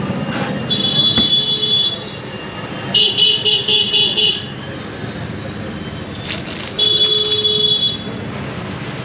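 Vehicle horns honking in street traffic: a honk about a second long, then a run of quick toots, then another honk of about a second. Steady traffic noise underneath.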